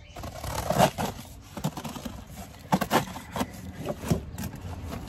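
Scissors slicing through packing tape on a cardboard box, with irregular scrapes and a few sharp knocks as the box is handled.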